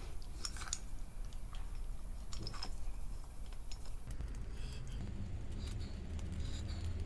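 Scattered small clicks and light taps of metal engine parts being handled as the thermostat housing cover is fitted over the new thermostat on an engine block.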